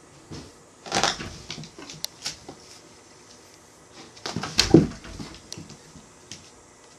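Two cats wrestling: two spells of scuffling and knocking about, one about a second in and a louder one around four and a half seconds that ends in a thump, with a few lighter knocks in between.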